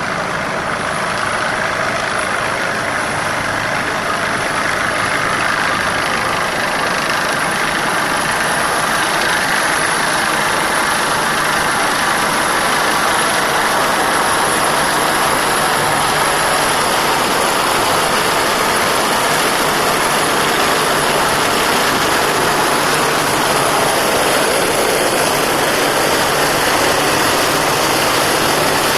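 Airbus EC145 twin-turbine helicopter running at power: a loud steady rush of rotor and engine noise with a thin high turbine whine over it, growing slightly louder over the first few seconds.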